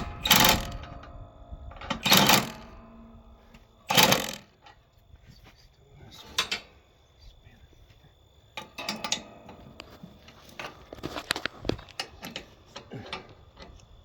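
Hammer striking metal: three loud ringing blows about two seconds apart, then lighter tapping and clatter of metal parts.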